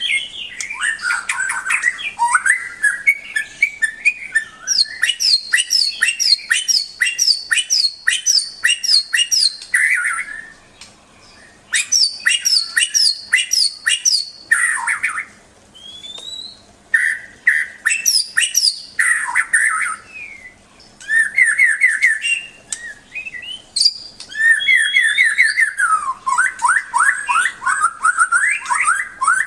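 White-rumped shama (murai batu) singing: long, varied phrases of fast repeated chirps, trills and clear whistles, broken by short pauses of about a second between bursts.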